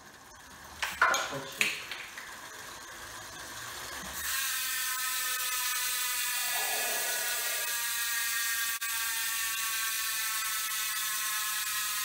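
A road bike's rear freehub ticking as the rear wheel freewheels in a work stand: a rapid, steady buzz of pawl clicks that starts about four seconds in, after a couple of knocks as the wheel is spun up.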